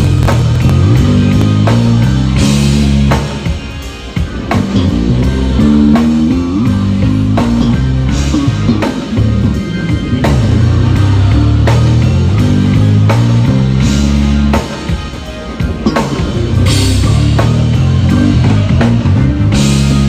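Electric bass guitar playing a moving line of deep notes with a drum kit and cymbals, a full band playing loud during a sound check. The playing eases off briefly twice, about three seconds in and again about fifteen seconds in.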